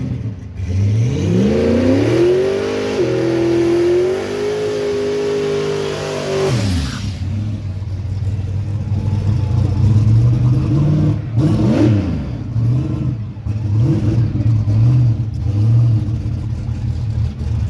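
Turbocharged Ford Mustang engine revving: it climbs over a couple of seconds, holds at high revs for about four seconds, then drops sharply. Afterwards it runs lower, with several short rev blips.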